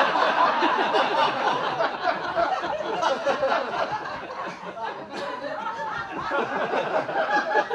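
Audience laughing together at a punchline, many voices at once, a sustained wave of laughter lasting several seconds.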